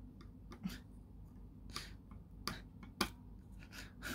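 Soldering iron working cheap solder onto a circuit-board pad: about six sharp clicks and short crackles, some with a brief hiss, the sharpest about three seconds in.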